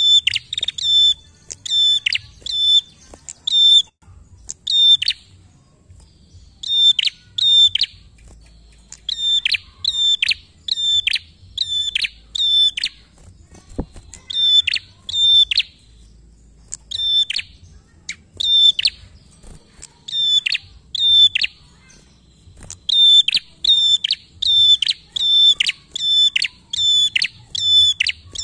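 Caged prenjak calling busily: sharp, high notes repeated in quick bouts of a few notes each, with short pauses between bouts.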